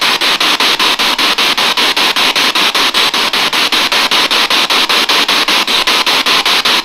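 Ghost-box radio scanning through stations: loud hissing static, chopped by short gaps about seven times a second.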